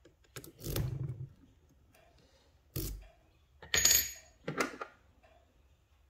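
Metal lock picks and a tension wrench clicking and scraping against an Assa 700 pin-tumbler cylinder in a vise. There are four short metallic clicks and scrapes, and the one near the middle rings briefly.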